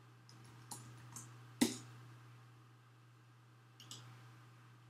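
A few isolated clicks of a computer mouse and keyboard, the loudest about a second and a half in and two lighter ones near the end, over a faint steady low hum.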